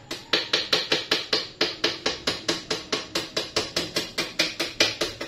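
A kitchen utensil knocking quickly and evenly, about six sharp strikes a second, while a sticky granola-bar mixture is worked by hand.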